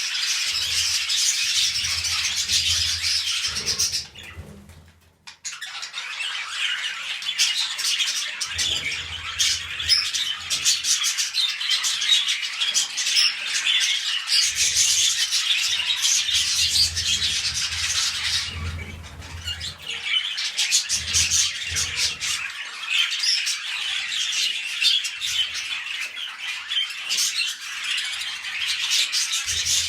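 Budgerigars chattering and warbling in a dense, fast stream of chirps and squawks. The chatter breaks off briefly about four seconds in, then resumes.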